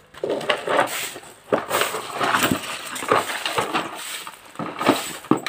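Dry leaves crackling and rustling in a plastic tub as a dog steps and noses through them, in irregular crunches.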